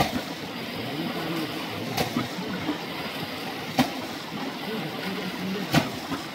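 Stream water running steadily, broken by four sharp knocks or splashes about two seconds apart.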